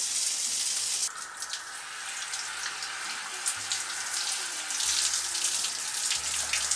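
Handheld shower head spraying water onto wet hair, a steady hiss of running water that shifts in tone about a second in.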